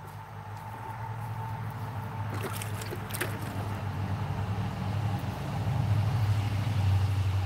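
A low, steady rumble that grows gradually louder, with a few faint clicks about two and a half to three seconds in.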